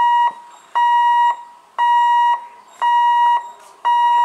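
Level crossing warning alarm beeping, one steady high tone switching on and off about once a second, the signal that a train is approaching the crossing.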